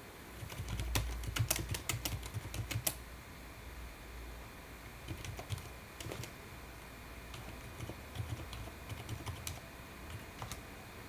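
Typing on a computer keyboard: a quick run of keystrokes in the first three seconds, then slower, scattered key presses.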